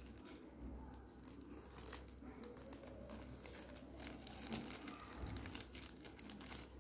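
Faint crinkling and rustling of a thin white paper packet being handled and pulled open by hand, many small crackles one after another.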